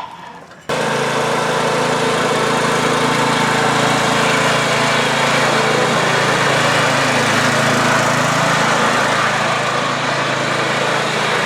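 Riding lawn mower's small engine running steadily at an even speed, coming in abruptly under a second in.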